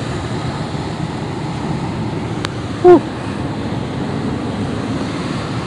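Steady rushing outdoor noise, like wind and surf on a phone microphone, with one short falling vocal sound about three seconds in.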